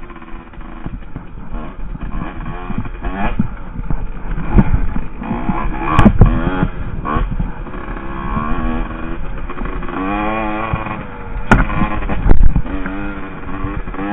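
Two-stroke engine of a Husqvarna WR 150 enduro dirt bike being ridden hard on a wooded trail, revving up and falling off again and again as the rider works the throttle. A few sharp knocks cut through, about six seconds in and twice near the end.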